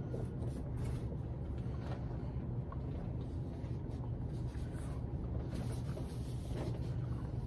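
A puppy gnawing a marrowbone, with faint irregular scraping and crunching, over a steady low hum.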